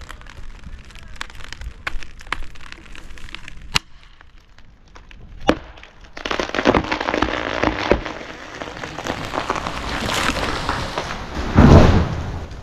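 Large ponderosa pine falling. Sharp, scattered cracks come first as the hinge wood gives way. About six seconds in, a loud rushing crash of branches builds, ending near the end in a deep, heavy thud as the trunk hits the ground.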